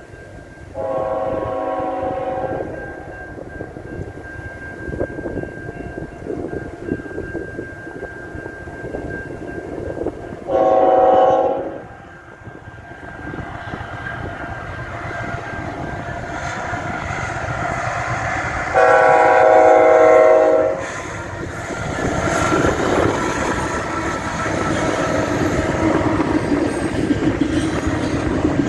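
Norfolk Southern diesel freight locomotives' multi-note air horn sounding three blasts: a long one, a shorter one about ten seconds later, then another long one, warning for the grade crossing. Between blasts the locomotives' rumble grows steadily louder as they come up and pass close by near the end.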